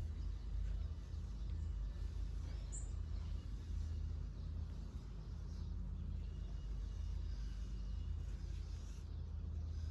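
Outdoor background noise: a steady low rumble, with a single short bird chirp about three seconds in.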